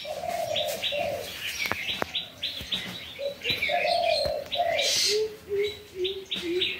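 Birds chirping in quick, repeated high notes, with lower cooing calls in a series running underneath.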